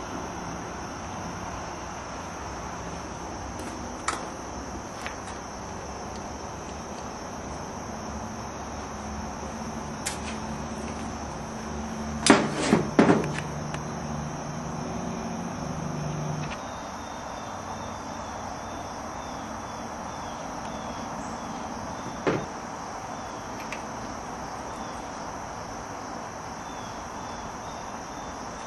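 Scattered sharp clicks and knocks of hands and tools on the power steering hose fittings as they are checked for tightness, with a quick cluster of louder knocks about twelve seconds in. A steady high-pitched tone runs underneath.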